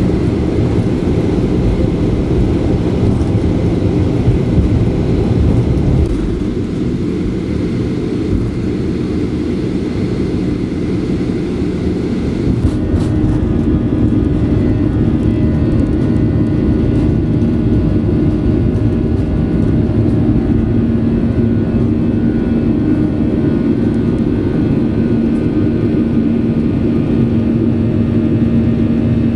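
Boeing 737-800 airliner heard from inside the cabin: a loud, steady low rumble of engines and airflow. A little before halfway the hiss thins and a steady engine hum comes forward.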